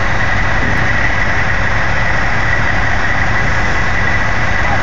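Heavy truck's diesel engine running steadily at idle, with a steady high-pitched whine over it.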